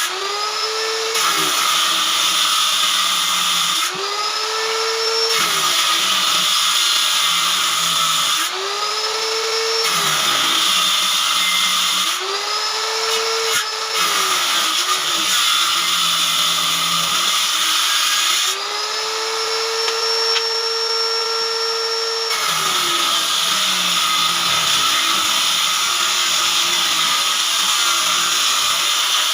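Electric woodworking power tool cutting wood in repeated passes. The motor spins up freely, then loads down into a noisy cut for a few seconds, over and over. There is a longer free-running spell near the middle, and the longest cut comes at the end.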